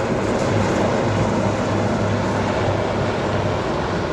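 Three navy helicopters flying past in formation, their rotors and turbine engines making a steady low drone.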